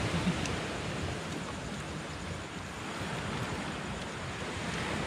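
Steady rushing wash of sea surf, mixed with wind, with a faint click about half a second in.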